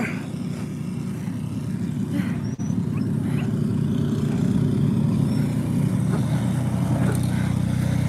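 Small engine of a single-stage walk-behind snowblower running steadily as it clears a sidewalk, getting louder as it comes closer.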